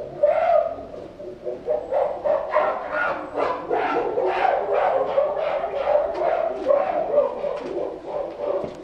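Chimpanzee calling: a long rapid series of loud, pitched calls, about three a second.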